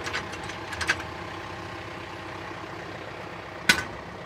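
John Deere compact diesel tractor idling steadily behind the three-point hitch, with sharp metal clicks from the hitch linkage about a second in and one louder click near the end as the lower lift arms are lined up on the attachment.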